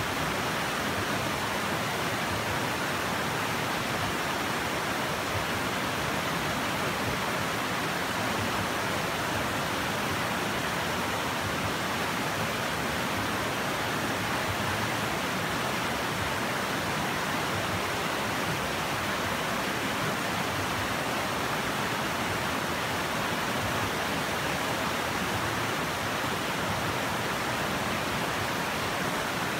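Shallow rocky river rushing over stones and through small rapids: a steady, even rush of water.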